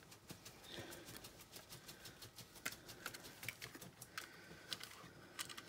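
Faint, irregular small clicks and light scrapes of a screwdriver turning a screw on the metal back of a wind-up alarm clock, with a few brief metallic rings as parts knock together.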